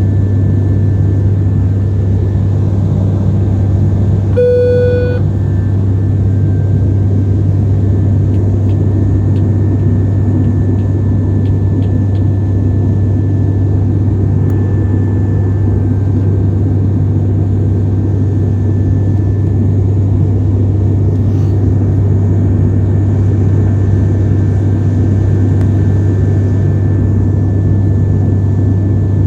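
Steady drone of engines and airflow inside an airplane cabin in flight, with a deep low hum. About four and a half seconds in, a single short electronic beep sounds, like a cabin chime.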